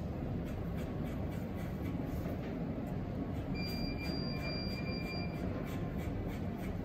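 A steady low mechanical drone, with a faint thin high whistle about halfway through.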